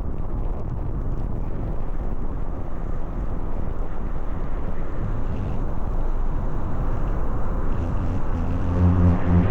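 Steady, loud rumbling wind noise buffeting the microphone. Near the end a steady low hum with overtones comes in and grows louder.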